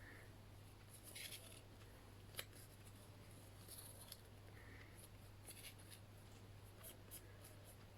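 Near silence with faint rustling and light clicks of wool being pulled through cardboard pom-pom rings with a wool needle, including one sharper click about two and a half seconds in, over a steady low hum.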